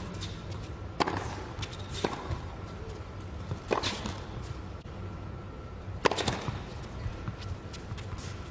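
Tennis rally on an indoor hard court: the ball is struck by rackets and bounces, a sharp crack every second or two, the loudest about six seconds in.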